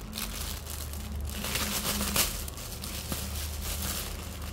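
Clear plastic wrapping crinkling and rustling as it is handled and pulled off a pair of rubber slippers, with a steady low hum underneath.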